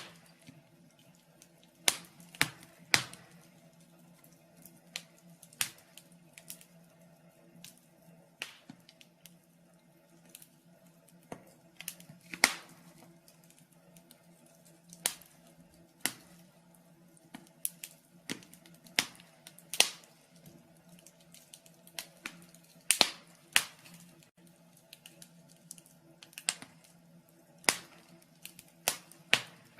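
Wood fire in a fireplace crackling, with irregular sharp pops about one or two a second over a faint steady low hum.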